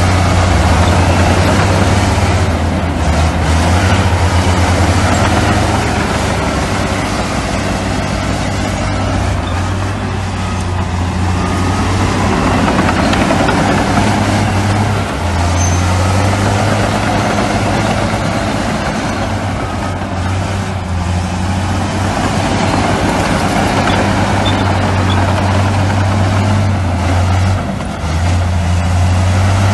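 Heavy diesel earthmoving machinery running: a loud, steady low engine drone that weakens for several seconds, comes back strong, and dips briefly near the end.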